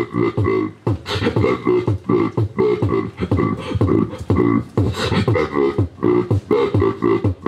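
Human beatboxing into a handheld microphone: a steady rhythm of vocal kick and snare hits over a pitched, hummed bass line.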